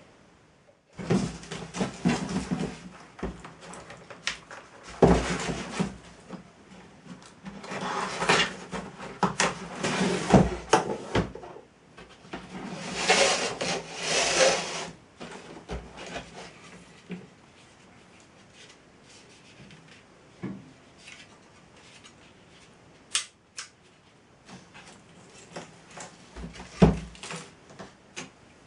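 Irregular knocks, clicks and rubbing, like hard objects being handled and set down, with a quieter stretch past the middle.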